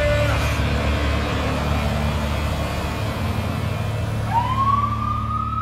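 Fire engine pulling out with a steady low engine rumble. About four seconds in, its siren starts to wind up, one tone rising in pitch and then holding.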